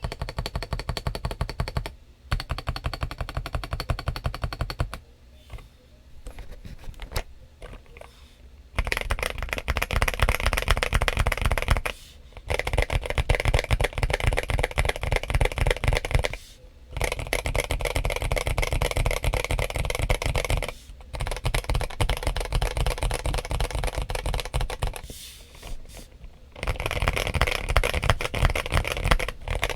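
Fast typing on a modded KBM1800 (James Donkey RS2) mechanical keyboard with Kailh Box Cream switches and MA-profile keycaps, its case filled and tape-modded. Dense runs of clacking keystrokes are broken by brief pauses every few seconds, with a lighter, sparser stretch between about five and nine seconds in.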